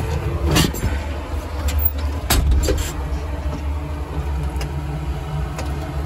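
Steady low machinery hum, with a few sharp knocks about half a second in and again around two and a half seconds in.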